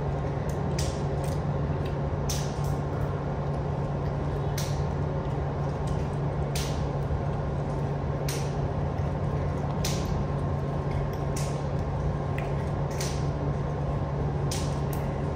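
Steady low mechanical hum of indoor room equipment, with short soft hissy ticks about every one and a half to two seconds.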